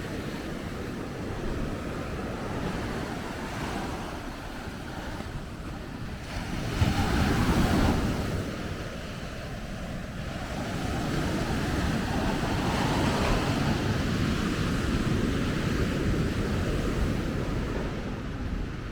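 Ocean surf breaking on a beach: a steady wash of waves, with one wave crashing louder about seven seconds in and the surf swelling again later.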